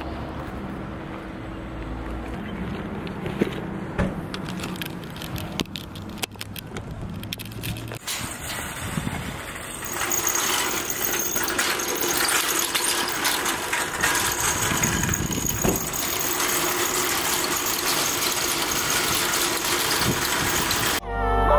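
Low hum of a car engine with a few clicks and clatters, then, from about ten seconds in, a wire shopping cart rattling steadily as it rolls across an asphalt parking lot.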